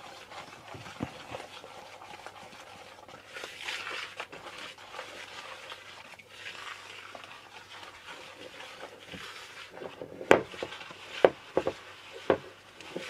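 A hand whisk stirring thick flour-and-egg waffle batter in a bowl: a soft, scratchy mixing noise, with a few sharp knocks about ten to twelve seconds in.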